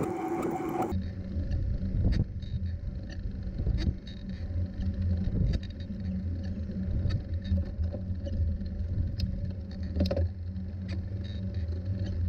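A TerraTrike recumbent trike rolling along a paved path, heard through a camera mounted on its frame: a steady low rumble with scattered clicks and knocks from the frame over bumps and seams. About a second in, the sound changes abruptly and the high hiss drops away.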